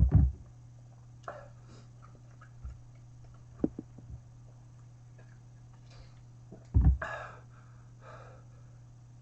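A person breathing hard with sharp, breathy exhales after a bite of hot chicken, a reaction to its heat. Two loud low thumps come at the start and again about seven seconds in, with a few small clicks between them.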